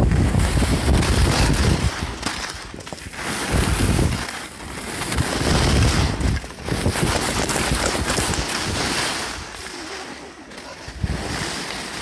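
Wind rushing over a smartphone microphone carried in a body pouch on a skier going downhill, rising and falling in swells, with sharp crackles and the scrape of skis on packed snow.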